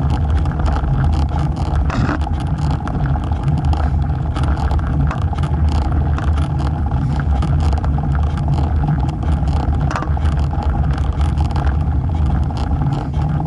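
Steady low rumble of wind and road noise on a camera fixed beside a road bike's front wheel as it rolls over rough, cracked asphalt, with frequent small clicks and rattles from bumps.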